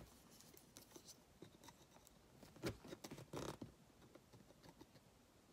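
Faint scratching and tapping of a kitchen knife's tip picking at a taped mailing package. A few louder scrapes come about two and a half to three and a half seconds in.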